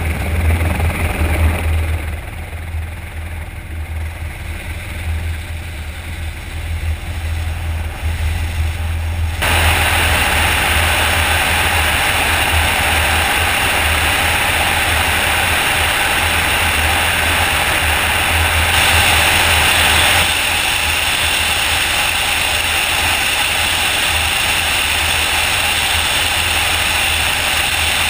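Eurocopter EC120B helicopter's rotor and turbine heard from on board: a steady low rotor thrum under engine noise. About ten seconds in, a louder, even rush of air joins it as the helicopter takes off and flies forward.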